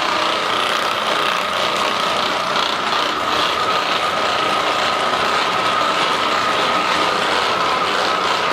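Handheld percussion massage gun running steadily: a constant motor whine over a rapid mechanical rattle.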